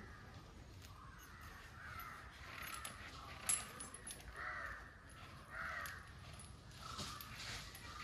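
Crows cawing faintly, with two clearer caws in the middle, and a sharp knock a little before them.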